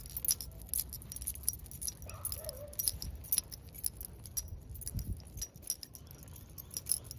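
Light, irregular clinking and jangling of small carried objects shaken while walking, over a low steady outdoor rumble.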